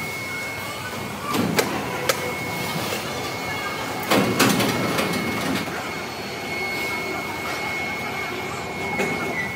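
Heavy-industry factory floor noise: a steady machine drone with a thin high tone, broken by several sharp metal clanks, a cluster of them about four seconds in.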